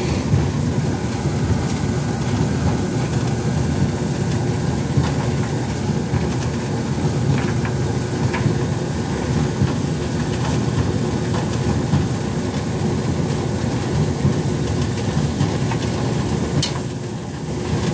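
Natural-gas clothes dryer running: the drum motor and blower make a steady rumble with light rattling ticks while the igniter heats. Near the end comes one sharp click, the gas valve coils opening the valve so the burner lights, the sign that the repair has worked.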